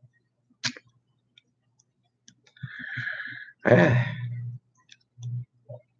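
A man's breath drawn in, then a loud breathy exhale carrying some voice, like a sigh, followed by a couple of short low grunts; a single sharp click comes about half a second in.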